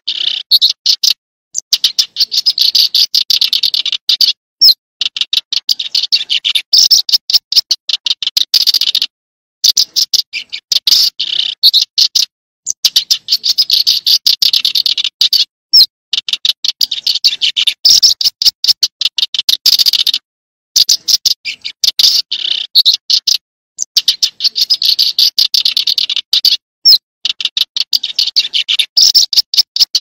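Small songbird singing: rapid runs of high, dry notes in phrases of two to three seconds, broken by brief silences and repeated over and over.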